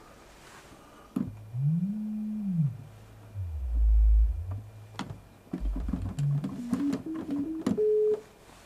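Pure sine-wave tones from a software synthesizer, played from a keyboard: one note bent up and back down with the pitch-bend wheel, then a low tone, then a run of short notes climbing in pitch. The tones have no envelope, so each one starts and stops with a click.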